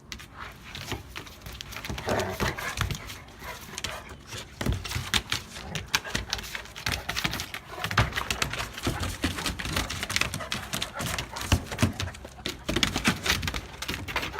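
Two Cane Corsos play-wrestling: a fast, irregular patter of paws and claws scrabbling and thudding on a hard floor, mixed with dog vocal noises.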